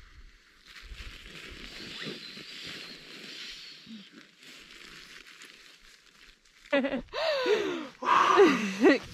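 A sleeping pad being blown up by mouth: a steady rush of breath into the valve, with some rustling of the pad's fabric. About seven seconds in come louder blowing noises that slide up and down in pitch.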